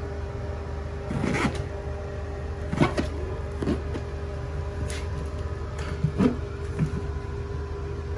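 Fingers pushing and sliding damp pre-pasted vinyl wallpaper along the wall to stretch it into alignment at a corner, making short rubbing scrapes a few times over a steady low hum.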